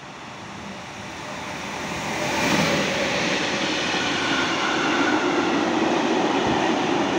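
Freight train of tank wagons approaching and passing close by. It grows louder until the locomotive goes past about two and a half seconds in, then the wagons' wheels roll steadily past on the rails.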